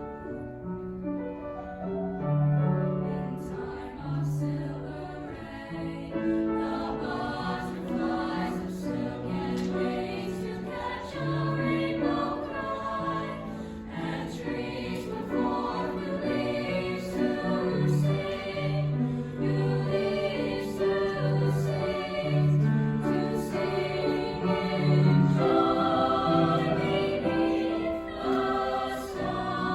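A high school chorus singing a choral piece, with held notes in several parts sounding together as chords.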